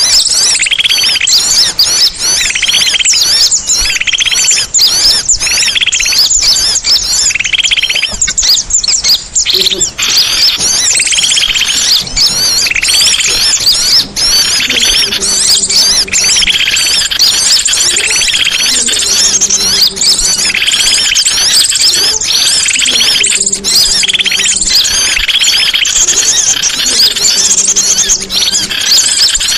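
Songbirds singing without pause: dense, fast, high chirps and trills overlapping, with rougher bursts of song about once a second. From about ten seconds in, a low steady tone comes and goes in blocks of a second or so.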